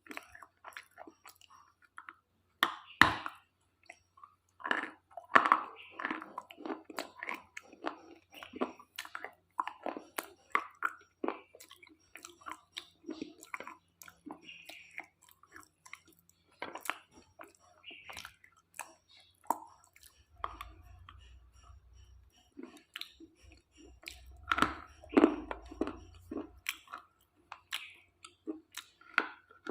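Close-miked crunching and chewing of brittle slate pieces: irregular sharp bites and crunches with chewing in between, loudest about three seconds in and again near the end.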